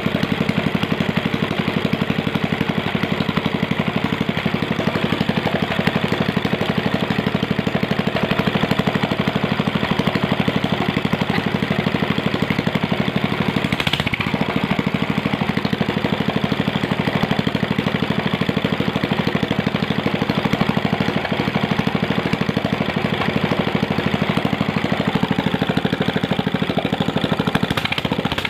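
Ryu small single-cylinder petrol engine running steadily at an even speed, with its carburettor reset to standard settings.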